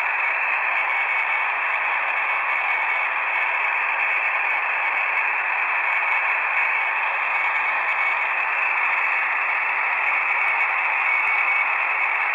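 Shortwave radio receiver in lower-sideband mode on the 40-metre amateur band, giving a steady thin hiss of static with no bass or treble and no voice coming through.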